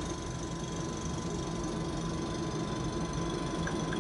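Steady machine hum of running laboratory equipment, with a thin steady tone over it. Faint light ticks come in near the end, about three a second.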